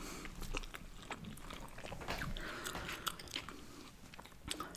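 Close-up chewing of a bite of a juicy Five Guys double cheeseburger: soft, scattered wet clicks and smacks.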